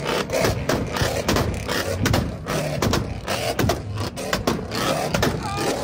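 Ford Mustangs' exhausts popping and banging in rapid, irregular cracks while spitting flames, over the steady low sound of the running engines.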